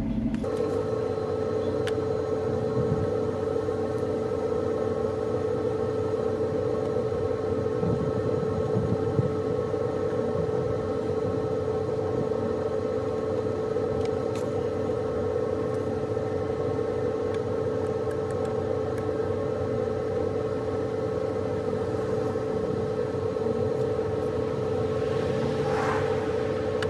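A steady machine drone holding one constant pitch throughout, with a brief rise of hiss near the end.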